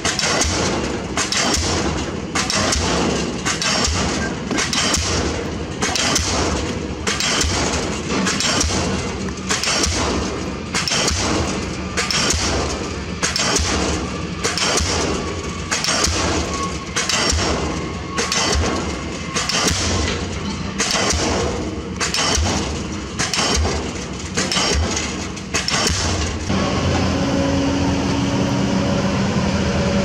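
Diesel pile hammer driving a concrete spun pile: a long, even run of sharp blows, a little more than one a second. The blows stop about 26 seconds in, and a steady engine hum takes over.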